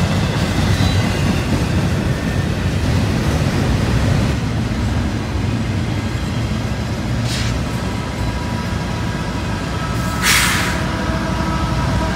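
Double-stack intermodal freight train rolling past, its wheels and cars making a steady rumble on the rails, with a sharp hiss about ten seconds in. Near the end, steady whining tones come in as a mid-train CSX diesel locomotive draws near.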